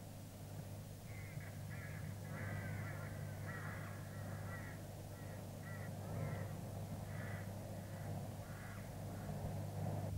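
Crows cawing repeatedly, a string of short calls from about a second in until near the end, over a steady low hum.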